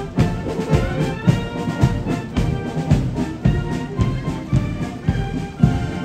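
A Guards military marching band playing a march on brass instruments, with a bass drum keeping a steady beat about twice a second.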